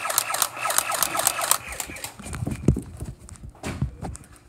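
A rapid run of sharp clicks for about the first second and a half, then several separate dull thuds of running footsteps on a carpeted floor.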